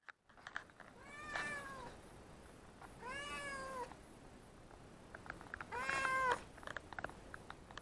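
Domestic cat meowing three times, about two seconds apart, each meow rising and then falling in pitch; the third is the loudest. A few faint clicks fall between the calls.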